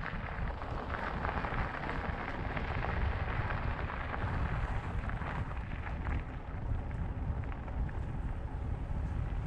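Mountain bike tyres rolling over a gravel and grass track with a steady crackle, and wind buffeting the helmet camera's microphone as a low rumble.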